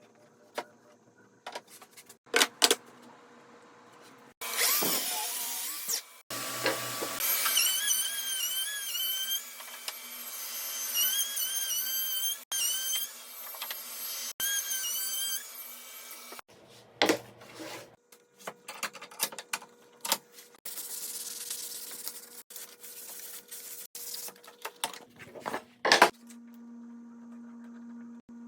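A power tool runs for about nine seconds in the middle, its pitch dipping and recovering again and again as it works. Before and after it there are scattered knocks and handling clatter of workshop work.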